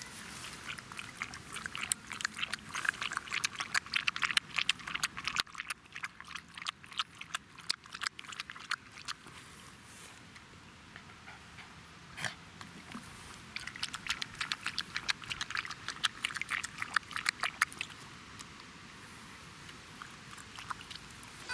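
A Jack Russell terrier lapping water from a man's cupped hand: three spells of quick clicking licks with pauses between.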